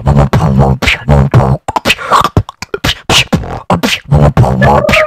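A man beatboxing close into a microphone: a fast run of sharp kick and snare sounds made with the mouth, with low bass notes held between the hits.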